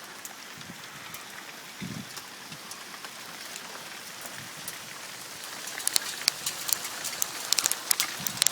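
Hail falling and pelting the ground: a steady hiss dotted with sharp ticks of hailstones striking. The impacts grow louder and more frequent in the second half.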